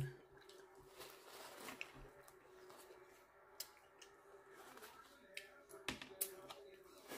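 Faint eating sounds: a plastic fork and knife scraping and clicking against a disposable plate as food is cut, a scattering of small sharp clicks.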